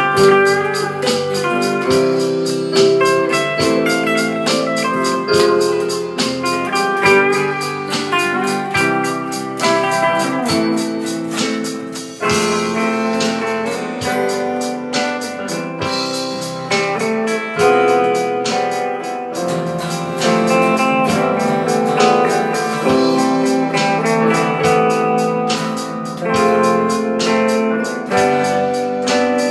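Slow instrumental band music: a lead electric guitar plays a sustained, gliding melody over bass guitar, keyboard, rhythm guitar and drums.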